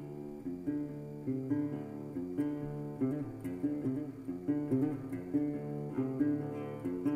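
Background music led by guitar, playing a steady rhythm of picked and strummed notes.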